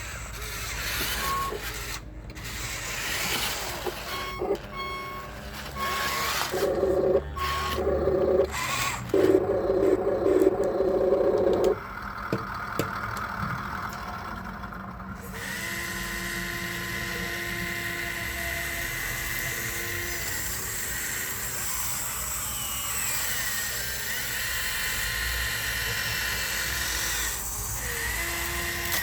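Small electric motors and gearboxes of radio-controlled construction models whining in short stop-start bursts, then running more steadily from about halfway.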